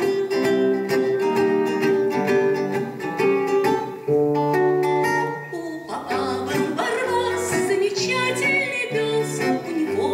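Acoustic guitar playing an instrumental passage, with singing over it from about six seconds in.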